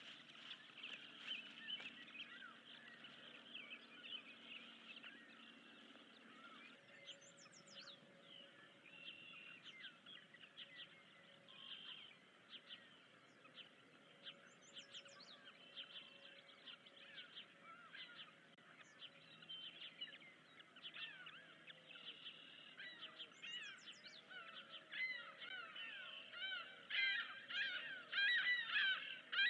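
Birds chirping in short repeated calls, growing louder and busier near the end. For the first several seconds a steady high hiss and a faint low hum sit underneath, then stop abruptly.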